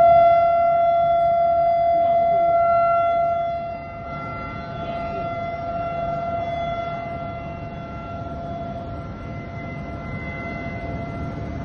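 A steady alarm tone with overtones, holding one pitch without rising or falling. It is louder for the first few seconds, then drops and goes on more faintly over a low rumble.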